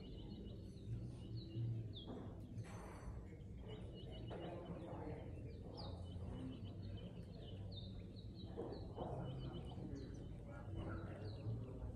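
Small birds chirping, with many short high notes and quick trilled runs, over a faint low steady rumble.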